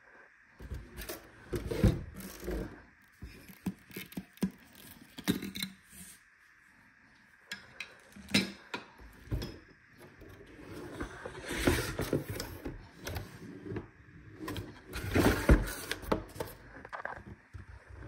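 Unboxing handling noise: a cardboard box and its paper and plastic packaging being handled, with irregular rustles, scrapes and knocks that come in bursts, the loudest about two seconds in, around twelve seconds in and near fifteen seconds in.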